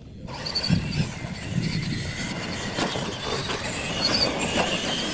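Two radio-controlled monster trucks launching off the line and racing on dirt: a sudden start of electric motor and gear whine over tyre noise, with a few knocks as they run, the whine climbing near the end.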